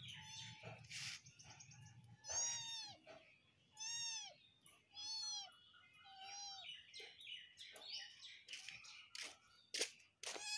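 Young kitten mewing over and over, high thin cries that each rise then fall in pitch, about one every second or so, with a few sharp clicks in between.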